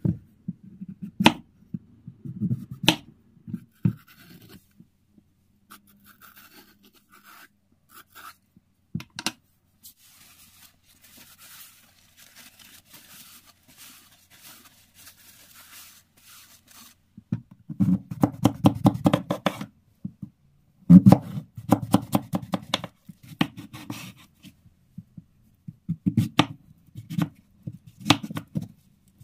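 Kitchen knife cutting zucchini on a wooden cutting board: a few sharp chops early on as the ends are trimmed, a stretch of soft scraping in the middle, then runs of quick strokes as the zucchini is sliced lengthwise into slabs.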